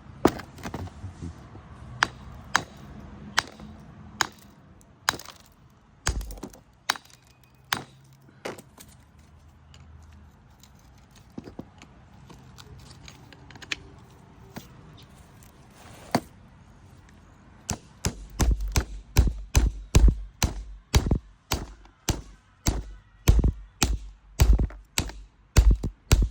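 A rock being struck again and again to split it apart: sharp single knocks a second or so apart, then near the end a faster run of heavier blows, about two a second.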